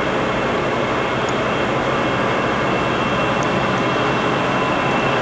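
Poreba TPK80A/3M heavy-duty engine lathe running under power with the crossfeed engaged: a steady machine hum with a faint constant high whine over it.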